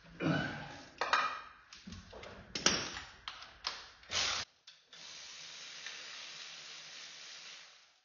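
Metal hand tools clicking and knocking against the engine's flywheel and torque converter bolts as a bolt is undone by hand, a quick irregular string of sharp clicks over the first four or five seconds. A steady faint hiss follows.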